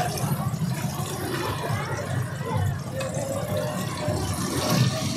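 Martabak frying in a wide, shallow pan of hot oil, the oil sizzling and bubbling steadily.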